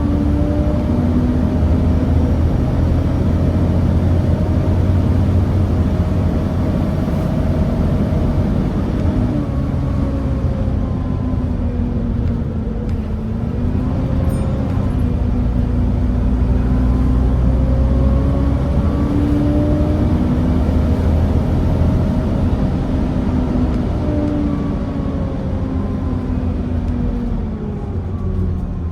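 Volvo B7TL bus's D7C six-cylinder diesel engine running under way, heard from on board, its pitch rising and falling several times with the bus's speed.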